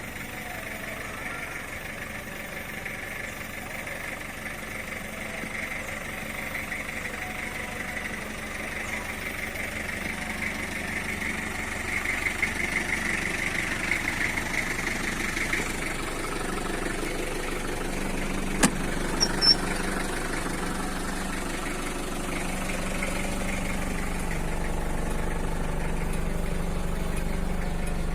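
Engine of a 1998 Mitsubishi L300 minibus idling steadily, gradually getting louder, with a few sharp clicks a little after halfway.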